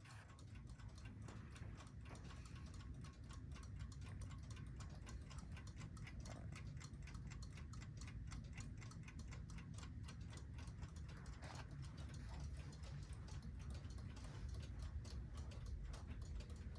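Faint mechanical clock ticking: quick, steady ticks over a low, steady hum.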